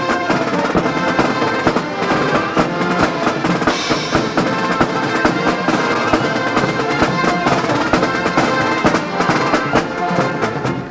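Music with prominent drums: a dense run of drum hits over pitched instruments.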